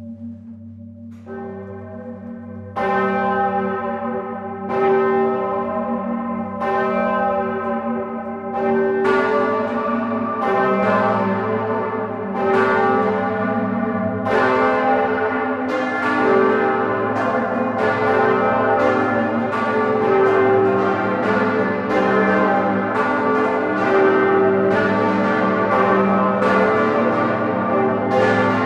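Full peal of large Grassmayr-cast bronze church bells swinging, recorded up in the bell tower, the deep bells humming on between strokes. Strikes come about every two seconds at first, and from about nine seconds in the strokes come thick and overlapping as more bells join.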